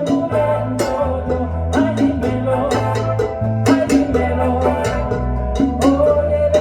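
Small live band playing a Latin groove: electric bass, guitar and keyboard over hand drums (congas and bongos), with regular sharp drum strikes.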